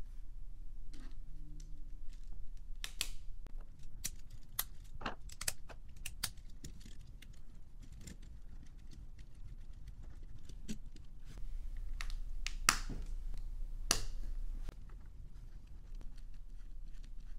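Small plastic LEGO Technic pieces clicking and tapping irregularly as a rubber tyre is pushed onto a wheel hub and the assembled telehandler model is handled and its parts moved, with a couple of sharper clicks about two-thirds of the way through.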